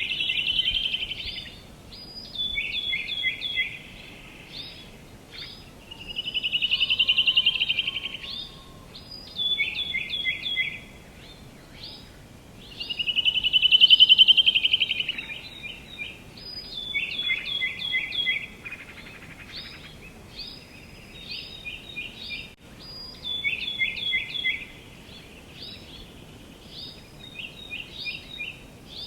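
Songbirds singing over a faint steady background hiss: a buzzy trill that swells and fades twice, with runs of short, quick falling notes repeated in between.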